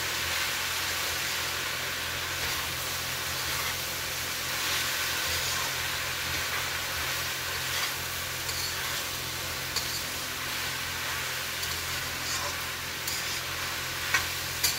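Diced potatoes and phalar sizzling in oil in a kadai on a gas burner while a metal spatula stirs and scrapes them round the pan, with a few sharp clicks of the spatula against the pan, two of them near the end. A steady low hum runs underneath.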